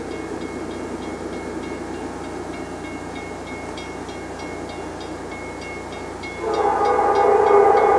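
Approaching diesel freight train rumbling steadily. About six and a half seconds in, the lead GE C44-9W locomotive's air horn comes on loud: a steady chord of several notes, held.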